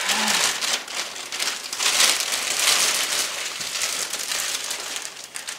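Plastic bread bag crinkling and rustling in uneven bursts as it is handled and twisted closed.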